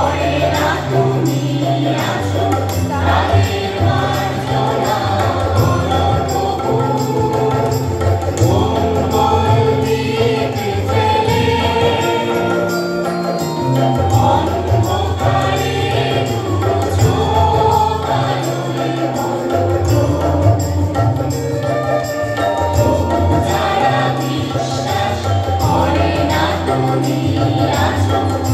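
Background music: a Bengali film song with a woman singing and a chorus.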